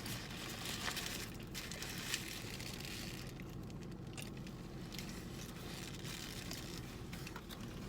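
Faint rustling and crinkling of food wrappers, with a few light clicks, over a steady low background hum.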